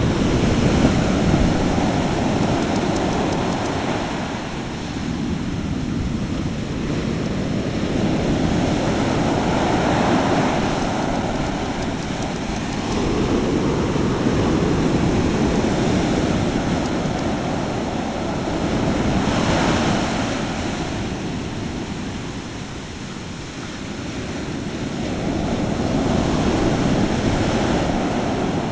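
Ocean surf breaking and washing up a sandy beach, a continuous rush of water that swells and fades in slow surges every few seconds.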